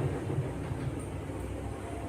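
Low, steady rumble of background noise, with no clear parrot call.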